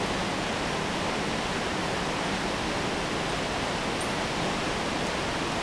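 Steady rushing of a mountain torrent, an even unbroken hiss of falling and running water.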